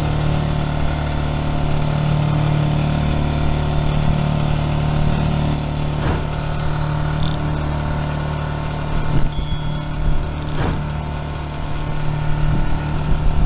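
An engine on a wooden fishing boat running with a steady, even hum. A few sharp knocks come in the second half.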